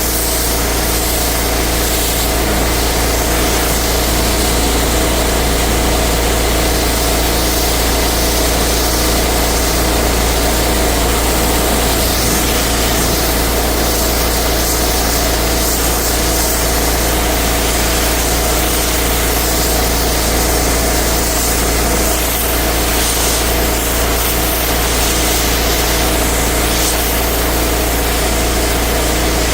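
Engine-driven pressure washer running steadily, its engine hum under the hiss of the high-pressure water spray.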